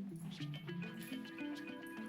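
Background music: a melody of short plucked notes over sustained tones.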